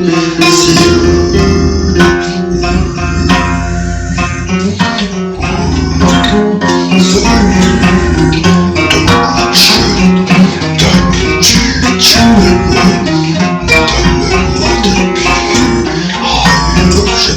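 Dark folk music with plucked guitar and percussion.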